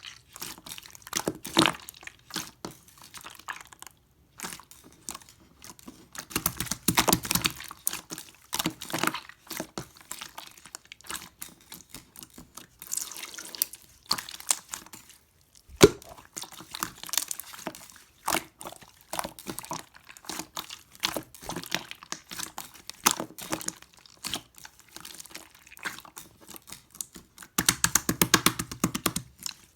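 Hands squeezing and stretching clear slime: an uneven run of small clicks and pops, with a few denser crackling stretches, the loudest near the end, and one sharp pop about halfway through.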